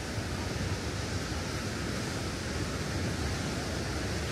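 Steady rushing noise with an uneven low rumble from wind buffeting the phone's microphone.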